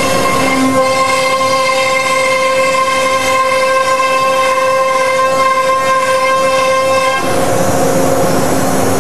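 CNC router spindle whining at a steady pitch as the bit cuts through a sheet, over a rushing cutting noise. Near the end the whine fades, leaving mostly the rushing noise.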